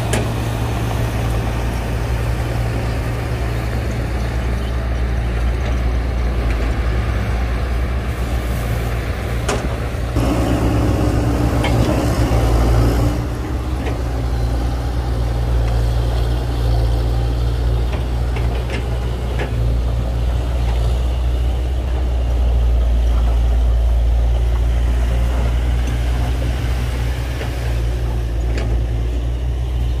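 Diesel engines of a crawler bulldozer and dump trucks running steadily under work, with a deep constant engine drone that swells briefly about a third of the way in.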